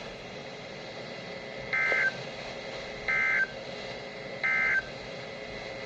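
Emergency Alert System end-of-message signal: three identical short data bursts of warbling two-tone digital audio, about 1.4 seconds apart, over faint radio hiss. It marks the end of the broadcast warning.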